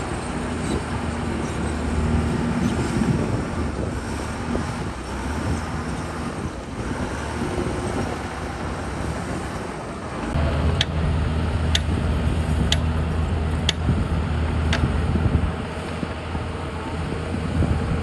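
Komatsu bulldozer's diesel engine running steadily, growing louder about ten seconds in. A run of five sharp clicks comes about a second apart while it is louder.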